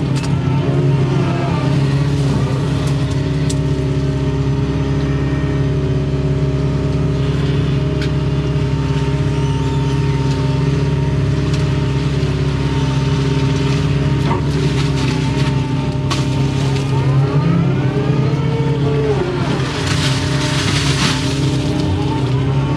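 Hydraulic excavator's diesel engine running steadily at working speed, with whines that rise and fall as the hydraulics move the boom and bucket, and a few short knocks.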